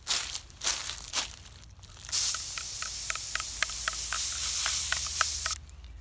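Aerosol can of metallic gold spray paint being sprayed onto metal parts. It gives three short puffs in the first second or so, then a steady spray hiss from about two seconds in that cuts off shortly before the end, with faint ticks through it.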